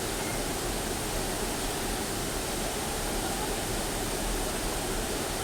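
Steady rush of a waterfall: falling water splashing without a break into the pool below.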